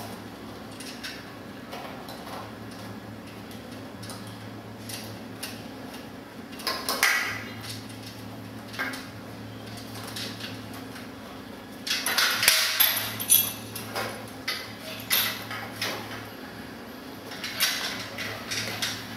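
Nuts, bolts and a steel mounting plate clinking and clattering as they are handled and hand-tightened, in scattered bursts with the busiest stretch about twelve seconds in, over a steady low hum.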